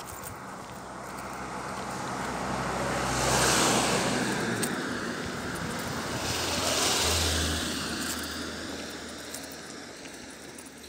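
Two cars passing close by on an asphalt road one after the other, each swelling up and fading, with engine hum and tyre noise; the first passes about three and a half seconds in, the second about seven seconds in.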